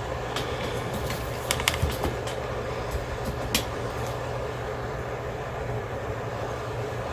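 Light clicks and taps of hands handling the opened microwave's wiring and metal parts, a few sharp ones in the first four seconds, over a steady background hum.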